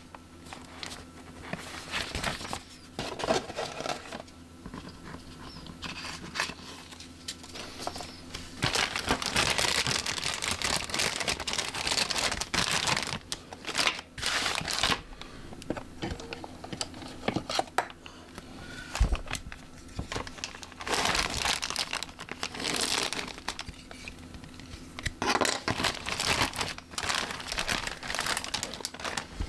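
Plastic packaging crinkling and rustling in irregular spells as model kit parts are handled.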